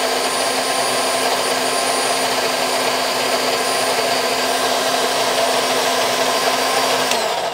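Electric mixer grinder (mixie) running steadily at full speed, grinding a thick green chutney in its jar. About seven seconds in it is switched off and its motor winds down.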